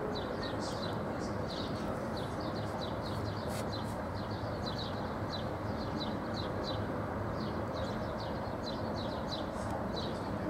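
Small birds chirping in quick, repeated short notes over a steady low rumble.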